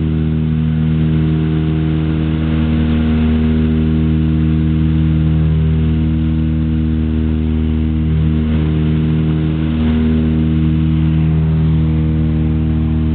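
Twin piston engines and propellers of a Britten-Norman Islander droning steadily, heard inside the small cabin.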